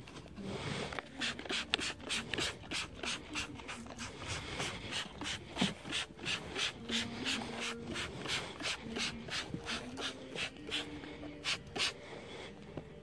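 Hand trigger spray bottle being pumped over and over, a short hissing squirt of cleaner about two or three times a second.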